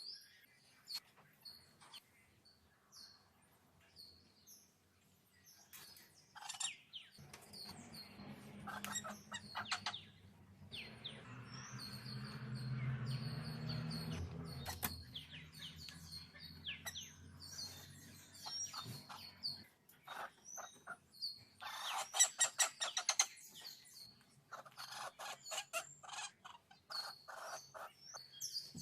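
Wild birds calling: repeated short, high chirps throughout, with bursts of rapid, harsh chattering calls about two-thirds of the way in and again near the end. A low, steady hum swells and fades in the middle.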